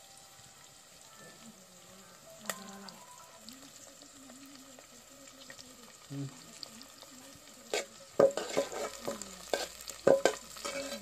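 Sliced onions and green chillies frying in a metal pot, with a quiet steady sizzle. In the last few seconds a metal spoon scrapes and clanks against the pot as the mixture is stirred, and these knocks are the loudest sounds.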